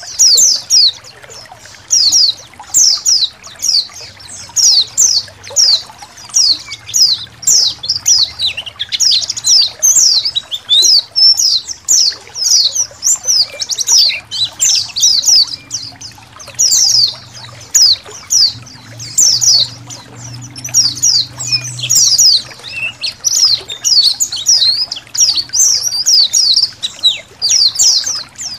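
A colony of white-eyes (pleci) chirping and twittering all at once, a dense, unbroken run of short, high, down-slurred notes. There is faint trickling water behind them.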